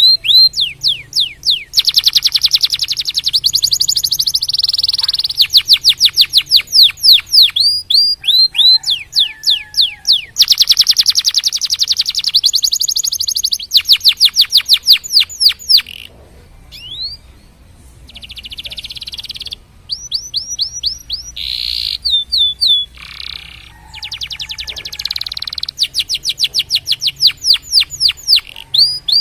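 Domestic canary singing a long song. Runs of rapid, repeated downward-sweeping notes alternate with dense buzzy rolls, with a few short breaks partway through.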